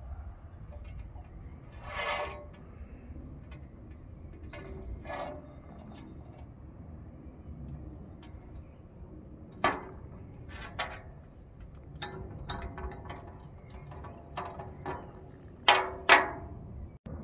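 Glass beer bottle handled on a glass-topped table: scattered clicks and light clinks, with a sharper ringing knock about ten seconds in and two loud knocks close together near the end as the bottle is stood down on the glass. A low steady rumble runs underneath.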